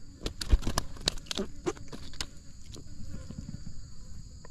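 Freshly caught golden walking catfish (cá trê vàng) flopping on a concrete path: a quick run of wet slaps and knocks in the first two seconds or so, then fainter scuffling. Crickets buzz steadily behind.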